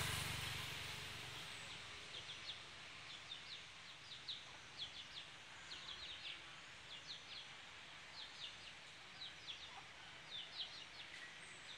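Short high chirps from small birds, repeated in quick clusters of two or three, over a faint steady background. A passing motorcycle fades away in the first second or two.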